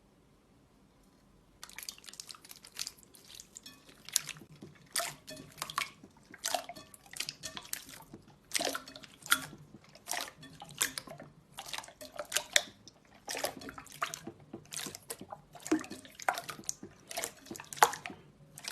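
Slime being squished and pressed by hand, making an irregular run of wet clicks and pops that starts about a second and a half in.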